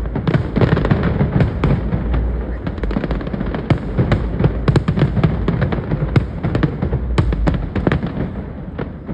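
Fireworks display: many shells bursting in quick succession, giving a dense run of sharp bangs and crackles over a deep rumble. The bangs thin out and fade away near the end.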